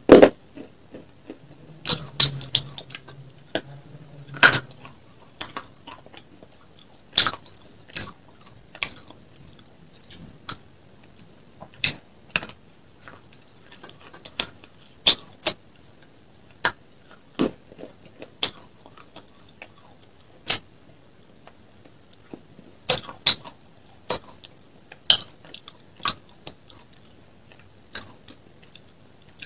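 Sharp, crisp crunches of a person biting off and chewing pieces of a hard, brittle grey slab, close to the microphone. The cracks come irregularly, roughly one every second or two.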